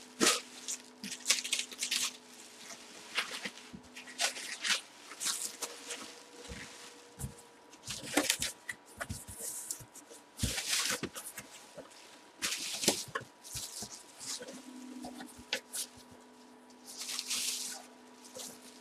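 Plastic bubble wrap being crinkled and pulled at by hand, in irregular bursts of crackling and rustling.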